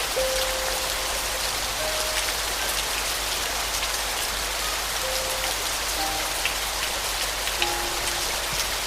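Steady rain falling, a dense even hiss with fine drop ticks, under soft piano playing a few sparse, slow single notes.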